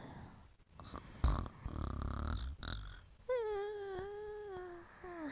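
A sleeping pet snoring, then about three seconds in letting out one long whine, falling slightly in pitch, as it dreams.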